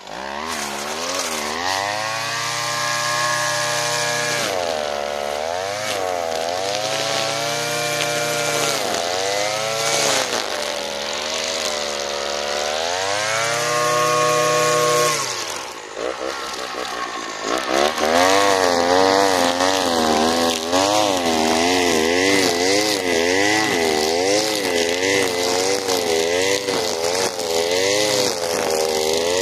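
Alpina Star 55DP petrol trimmer's two-stroke engine running under load as its string head cuts tall grass, the revs rising and falling over and over. After a short drop in revs midway, it holds at high revs for the second half, its pitch wavering quickly as the head sweeps through the grass.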